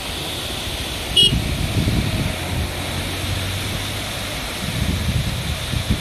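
Steady rush of a waterfall. A short vehicle horn toot comes about a second in, followed by the low rumble of a vehicle engine passing for a couple of seconds.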